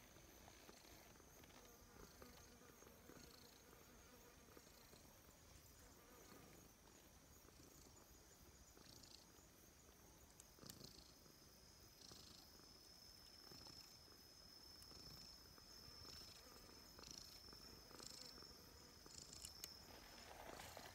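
Calico cat purring faintly while it is stroked.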